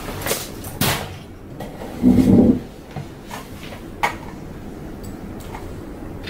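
A person settling at an office desk: a backpack handled and set down, a dull thud about two seconds in, and a few sharp knocks and clicks.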